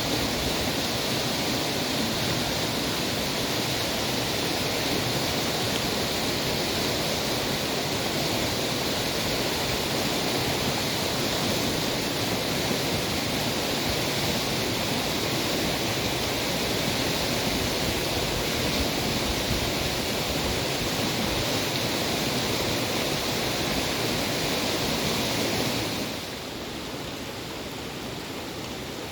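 Steady rush of a rain-swollen mountain creek running high and fast. Near the end the rush drops abruptly to a quieter level.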